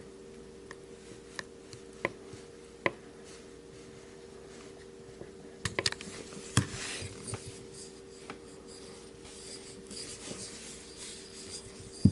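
Small clicks and light taps of a Kizer Task 1 folding knife's parts being handled while it is put back together, with stretches of light rubbing and scraping. A tight cluster of sharper clicks comes about six seconds in, and one loud click right at the end, over a steady low hum.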